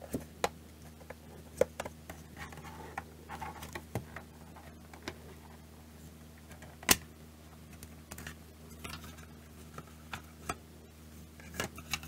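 Plastic case of a car heated-seat control module being pried open with a thin pick: scattered clicks and small snaps as the case's clips let go, with light scraping of the tool between them. One loud snap comes about seven seconds in, and a few quick clicks near the end.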